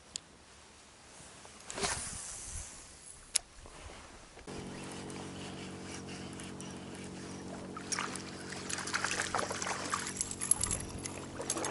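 A couple of sharp clicks, then from about four and a half seconds in a steady low engine drone, typical of a motorboat's motor running out on the river. Rustling and small knocks of handling join it near the end.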